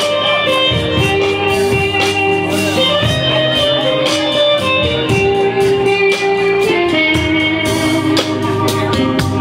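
Guitar-led music with a steady beat.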